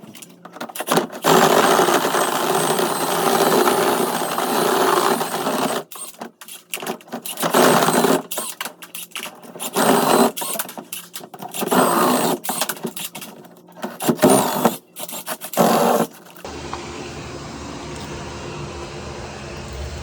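A small motor running in repeated bursts of one to four seconds with short pauses, then a steady low rumble takes over about three-quarters of the way through.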